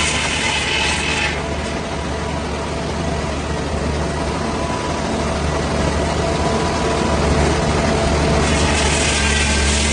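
Heavy sawmill engine running steadily with a deep hum. A high hiss over it drops away about a second and a half in and returns near the end.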